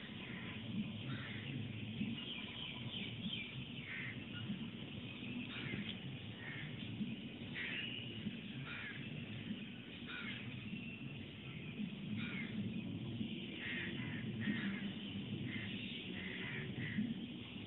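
Small birds chirping in short repeated calls throughout, over a low steady background rumble.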